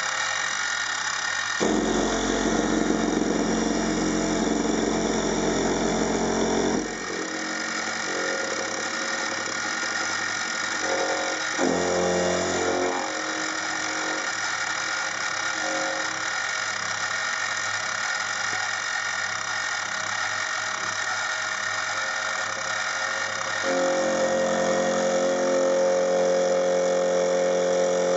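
Clarke CMD300 (Sieg X2) mini milling machine running with a steady high whine as an end mill cuts a metal part. The sound grows heavier and louder about two seconds in, briefly around twelve seconds, and again from about twenty-four seconds, as the cutter takes load in the cut.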